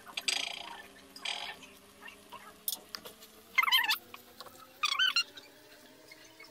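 Silicone brush turning chicken drumsticks in thick sauce in a non-stick pan: wet scraping and squelching, with two short, wavering high squeaks around the middle.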